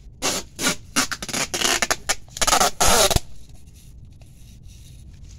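Packing tape pulled off its roll in a run of short rasping tugs, then one longer, louder pull about two and a half seconds in, as it is wound around a tree's root ball; it stops a little after three seconds in.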